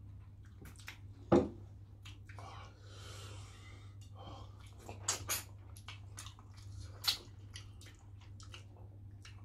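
Close eating sounds: chewing, lip smacks and finger-sucking as fish in pepper soup is eaten by hand. There is one sharp smack a little over a second in, a few more around the middle and a breathy exhale about three seconds in, over a low steady hum.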